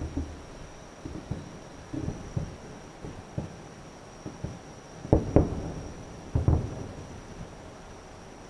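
Distant aerial firework shells bursting: a run of low, dull booms with rumbling tails, the two loudest about five and six and a half seconds in.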